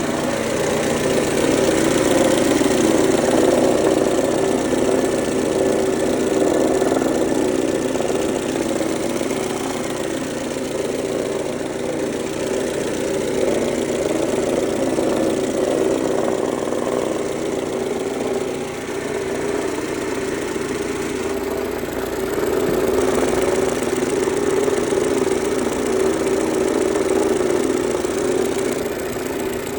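Mercedes-Benz A140 (W168) four-cylinder petrol engine running steadily at idle, making a sudden new noise from the front of the engine that the owner cannot place and fears may be serious damage.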